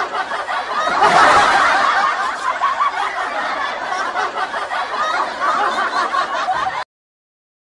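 Several people laughing together, loudest about a second in, cutting off suddenly to silence near the end.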